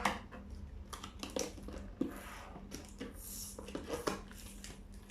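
Plastic wrapping on a toy box crinkling and rustling as it is handled and pulled off, in irregular crackles and clicks.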